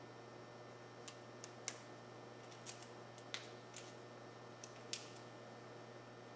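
Adhesive stencil film being peeled off a freshly painted bumper: a scattering of small, sharp crackles and ticks between about one and five seconds in, over a faint steady hum and hiss.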